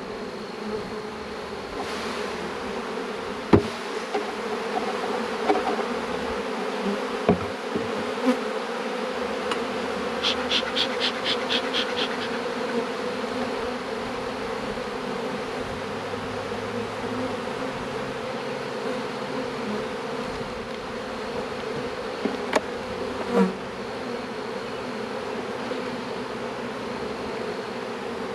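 Honeybees from an opened hive buzzing in a steady hum, with a few sharp knocks from the wooden hive boxes being handled. About ten seconds in, a quick run of about nine puffs from a bellows bee smoker.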